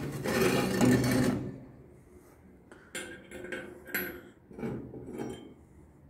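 A metal stovetop lid on a Sabah S103 wood stove scraped across the top plate with the stove's tongs and lifted off. This is followed by several sharp metal clinks and knocks as the lid and tongs are handled.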